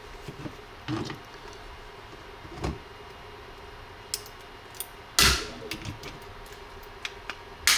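Handling noise of a 3D-printed plastic airsoft lower receiver being worked over: scattered light clicks and taps, with one louder sharp knock about five seconds in.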